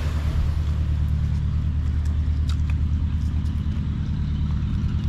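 A steady low mechanical hum with a few faint clicks over it.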